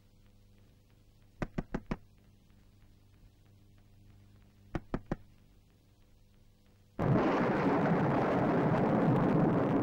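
Knocking on a door in sets of quick raps: four knocks about a second and a half in, three more about five seconds in. About seven seconds in, a loud steady background noise cuts in suddenly.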